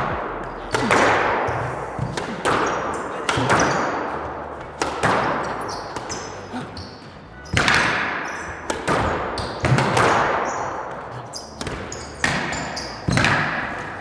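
Squash rally: the ball cracks off the racquets and the court walls about a dozen times, roughly one hit a second, each hit ringing out in the court's echo. Sneakers squeak briefly on the hardwood floor between shots.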